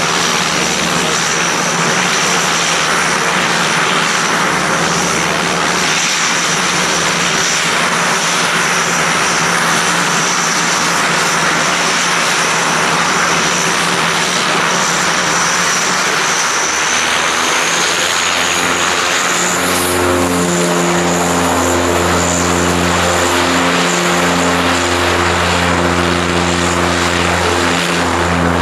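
Antonov An-26's twin Ivchenko AI-24 turboprop engines running as the aircraft taxis: a steady high turbine whine over propeller noise. About two-thirds through, the whine rises slightly and a deep propeller throb sets in that swells and dips every couple of seconds.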